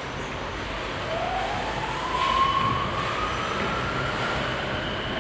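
Electric drive of an automated stacker forklift (AGV) running, its motor whine rising slowly in pitch as it gathers speed, over a steady hum.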